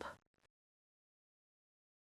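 Near silence: the last trace of a spoken word right at the start, then dead silence.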